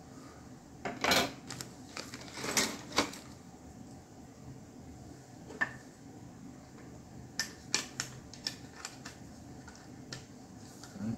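Plastic model kit parts being handled and set down: scattered light clicks and brief rustles, with a quick run of clacks about two thirds of the way in.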